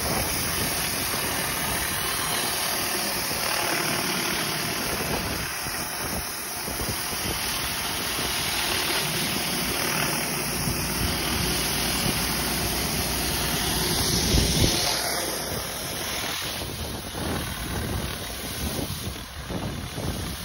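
Pressure washer working a wheeled rotary surface cleaner over concrete: a steady rushing spray of high-pressure water under the cleaner's hood, with an engine running underneath.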